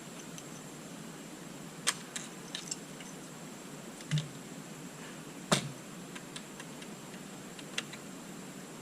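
Scattered small clicks and taps of latch hardware being handled and fitted, with one louder knock about five and a half seconds in.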